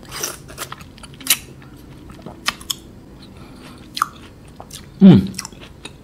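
A person biting into an unpeeled golden kiwifruit and chewing it, heard as a scatter of sharp mouth clicks. About five seconds in comes a short voiced grunt that falls in pitch, the loudest sound.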